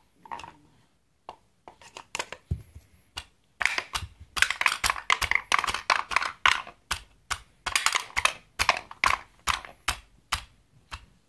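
Plastic cup banging on a wooden pound-a-ball toy, knocking the wooden balls down through its holes to clatter on the wooden ramps inside. It makes a quick, irregular run of hard knocks and clacks, sparse at first and thickening a few seconds in.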